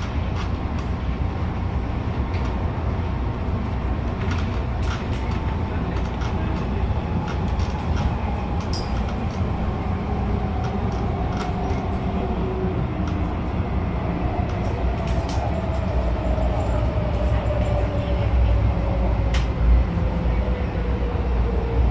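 CAF-built MTR Tung Chung line electric train running, with a steady low rumble from the wheels on the track and scattered clicks. A motor whine falls steadily in pitch through the second half as the train slows.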